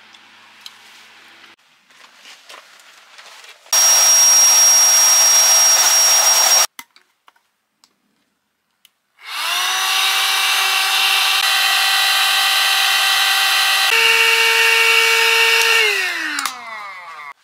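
A small high-speed electric motor running loud, twice. The first run cuts in and out abruptly with a steady high whine. The second spins up, runs steadily, shifts pitch about two-thirds of the way through, and winds down near the end.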